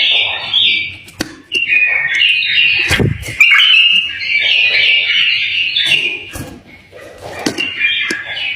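Pet bulbul singing in quick runs of warbled, chattering phrases. A couple of dull knocks come in the middle.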